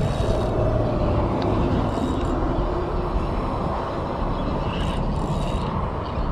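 Spinning reel being wound in against a hooked fish pulling on the bent rod, under a steady low rumbling noise.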